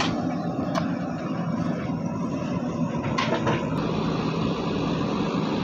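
Diesel engine of a JCB backhoe loader running steadily, with a few short metallic clanks.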